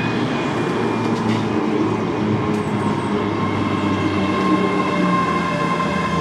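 ScotRail Class 385 electric multiple unit passing close by: a steady rumble of wheels on the rails, with the electric traction equipment whining at several steady pitches, one of them growing louder in the second half.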